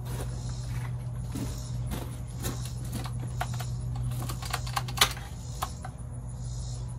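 Irregular clicks and light metallic taps from an angle grinder being handled, the loudest click about five seconds in, over a steady low hum. The grinder's motor does not run: it has no power.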